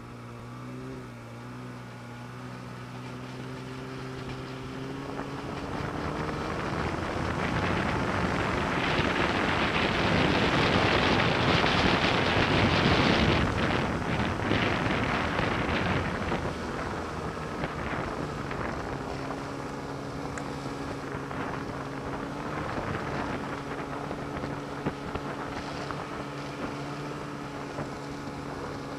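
Snowmobile engine running at about 4,000 to 5,000 rpm, its pitch climbing over the first several seconds as it accelerates. Around the middle a loud rush of wind on the microphone swamps it. The engine comes through again near the end, running steadily.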